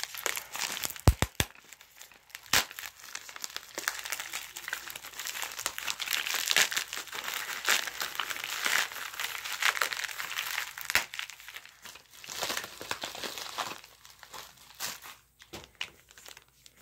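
White plastic packaging crinkling and rustling as it is handled and unwrapped by hand, densest through the middle and thinning out near the end. A few sharp knocks in the first three seconds.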